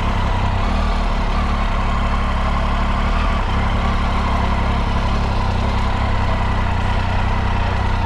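Triumph Tiger 800's three-cylinder engine idling steadily at low revs.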